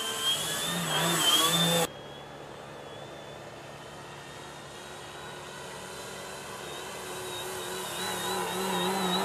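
Motor and propeller of a radio-controlled Extra 260 aerobatic model plane in flight, a whine whose pitch wavers up and down. It is loud at first, drops off sharply about two seconds in, then grows steadily louder again as the plane comes back.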